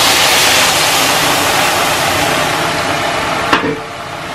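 Rice frying in butter sizzles hard as a ladle of vegetable broth is poured onto it, a loud hiss that slowly dies down. A short knock near the end.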